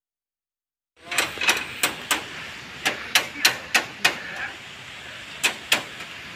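Silence for about a second, then a series of sharp, irregular knocks, roughly two a second, over steady building-site background noise.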